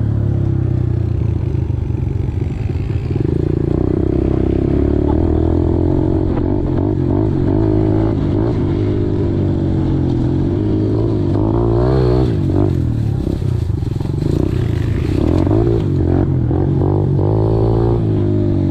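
Small dirt bike engine running under changing throttle, its pitch rising and falling as it revs up and eases off.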